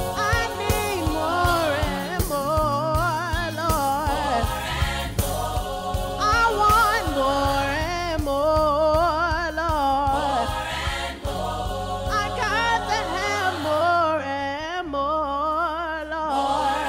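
Gospel music: a woman singing a praise song with strong vibrato over an instrumental backing with a steady bass line.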